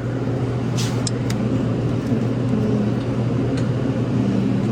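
Car running with a steady low hum.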